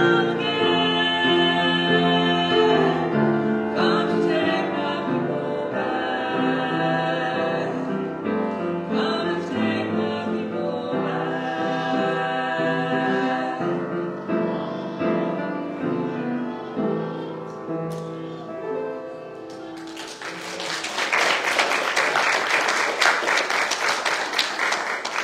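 Two women singing a duet with upright piano accompaniment. The song ends about twenty seconds in and the congregation breaks into applause, which then dies away.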